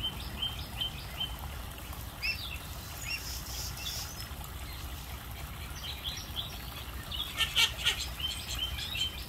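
Young African geese peeping: short high chirps in quick runs, busiest and loudest in the second half.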